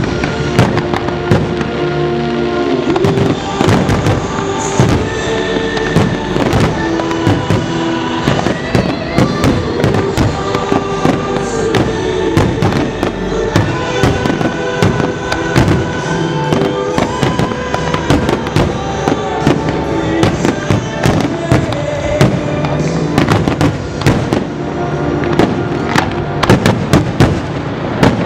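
Fireworks display: aerial shells bursting and crackling in a rapid, constant stream over music with long held notes. The bangs come thicker and louder near the end.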